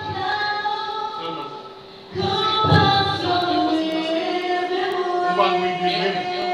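A girl singing solo into a microphone, holding long notes; she pauses briefly and starts a new, louder phrase about two seconds in.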